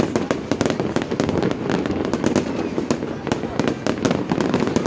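Fireworks display: a dense, continuous run of sharp bangs and crackles, several a second.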